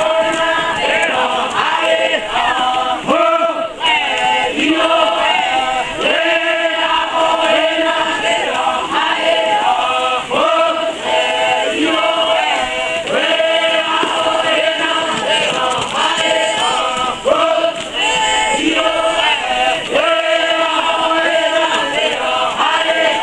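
A crowd of dancers singing and chanting together in many voices, a repeated chant that runs on without pause, as part of a Papuan highland traditional dance.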